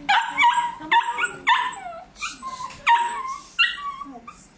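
Newborn puppies crying: a string of short, high-pitched squeals, about two a second, some sliding down in pitch at the end.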